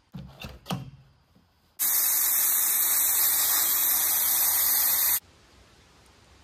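A few short knocks as a deflator chuck is fitted to a Yokohama mud-terrain tire's valve stem, then air hissing loudly and steadily out of the tire for about three and a half seconds before it cuts off abruptly. The tire is being aired down for off-road traction.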